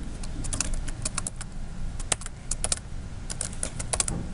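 Computer keyboard typing: short clusters of quick key clicks with brief pauses between them, as a calculation is keyed into a calculator emulator.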